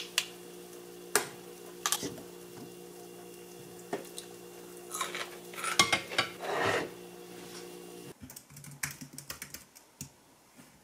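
Ceramic dishes and a glass jar knocking and clinking on a stone counter as pickled radish cubes are tipped into a small bowl, over a steady low hum. About eight seconds in, quick light typing on a computer keyboard.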